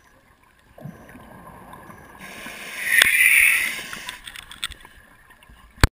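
Underwater scuba breathing through a regulator: a muffled rush of bubbling noise builds about a second in and swells into a loud hiss in the middle before fading. A sharp click sounds near the end.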